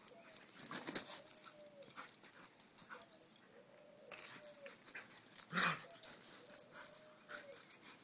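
A dog whining in play, a thin drawn-out whine repeated every second or so, each one bending down at its end, with light scuffling of feet on dirt and gravel and one short louder noise about halfway through.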